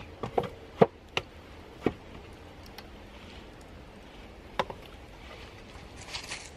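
Wooden poles knocking and clicking as they are handled and lashed together with twine: a few sharp knocks, the loudest about a second in, and a brief rustle near the end.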